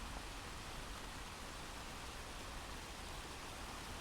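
Recorded rain ambience playing as a background track: a steady, even hiss of falling rain.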